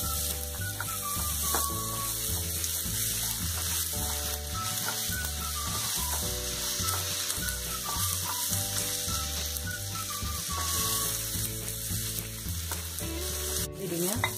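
Chopped onion sizzling in hot oil in a frying pan while a wooden spatula stirs and scrapes it through a tempering of mustard seeds, peanuts and dals; the onion is being sautéed. There is a sharp tap near the end, and soft background music underneath.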